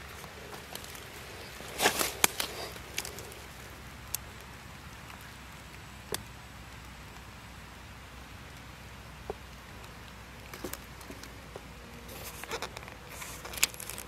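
Dry leaf litter crackling and rustling in a few short bursts, loudest about two seconds in and again near the end, over a faint steady hiss.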